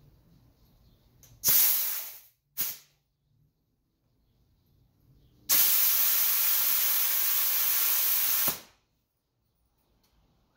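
Compressed air hissing from a shop air line: a sharp blast about a second and a half in that fades quickly, a short puff, then a steady hiss for about three seconds that cuts off suddenly.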